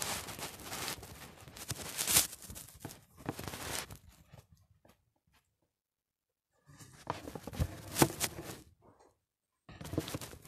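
Rustling and scraping handling noise on a phone's microphone, in irregular bursts with a few sharp clicks and stretches of dead silence between them.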